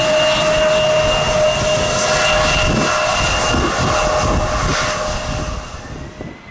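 Jet airliner engines passing close by: a loud, steady rush of engine noise with two steady whines, one low and one high, fading away about five and a half seconds in.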